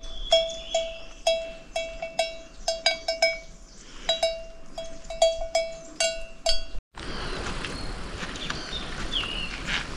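A livestock neck bell clanking irregularly, about two ringing metal strikes a second, each with a clear note that fades quickly. After an abrupt cut about seven seconds in, a steady hiss with a few bird chirps takes over.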